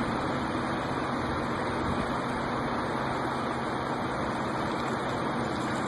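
Steady rush of a fast-flowing, flood-swollen river.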